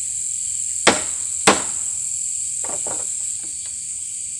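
A steady, high-pitched chorus of night insects such as crickets, with two sharp knocks about a second in, half a second apart, and a few softer clicks a little later.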